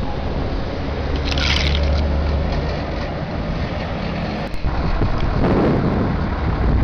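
Military truck engine and road noise heard from aboard the moving vehicle, with wind buffeting the microphone. A brief hiss about a second and a half in.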